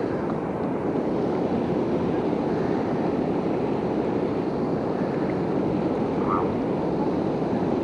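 Steady rush of river water pouring over a low-head dam.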